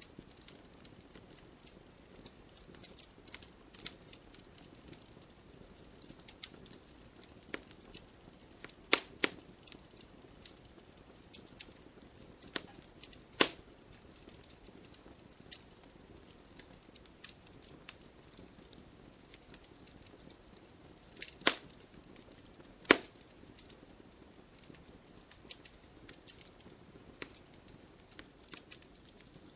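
Wood fire crackling in a fireplace: irregular sharp pops and ticks over a soft hiss, with a few louder snaps, the loudest about three-quarters of the way in.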